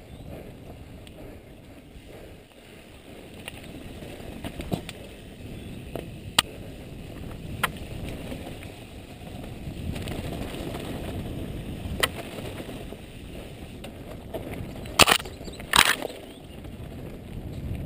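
Mountain bike rolling along a dirt singletrack: a steady rumble of tyres over dirt and loose stones, with sharp clicks and rattles from the bike every second or two. Near the end come two louder scraping knocks close together.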